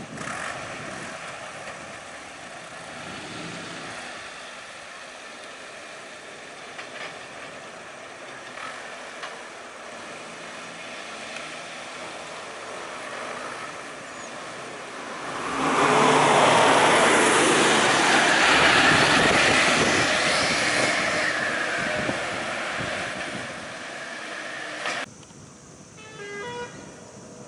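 Bus and car engines running while the vehicles stand stopped on the road, with a much louder stretch of vehicle noise lasting several seconds past the middle. The sound drops off abruptly near the end.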